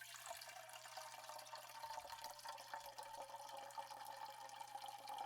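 Liquid pouring steadily into a container, faint, with a band of pitch that edges slightly upward, over a low steady hum.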